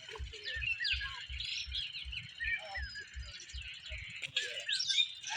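Small birds chirping and calling, many short rising and falling notes. Under them runs a low, regular thumping about three times a second, which stops about four seconds in.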